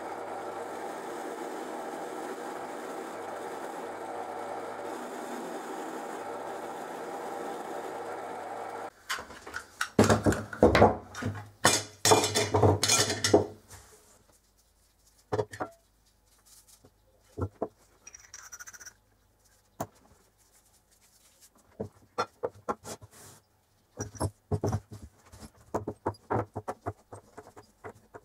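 A bench drill press motor running steadily with a spinning attachment in its chuck, which stops abruptly about nine seconds in. After that, small steel gears, pins and cast metal parts of an old hand drill clatter and clink loudly for a few seconds as they are handled, then give only scattered light clicks as they are set down on a cloth.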